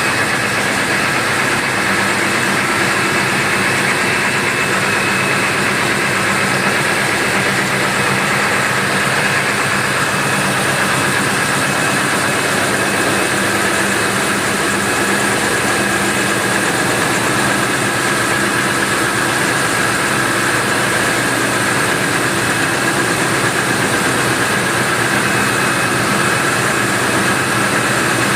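Cummins QSK60 V16 marine diesel main engine idling steadily during its warm-up, with an even, unchanging hum and whine.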